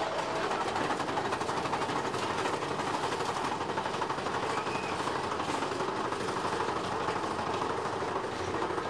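Big Thunder Mountain Railroad mine-train roller coaster running along its track at speed: a steady, dense rattle and clatter of the cars and wheels on the rails.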